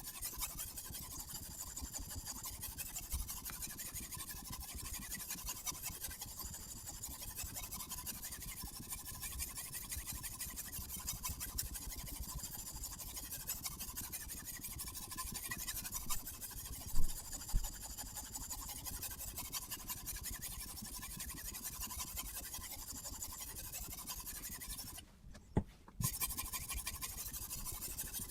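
Sharpening stone stroked back and forth along a knife's edge on a guided angle sharpener: a steady, rhythmic scraping that swells about every two seconds. One sharp knock comes about two-thirds of the way in, and near the end the scraping breaks off for about a second, with a click.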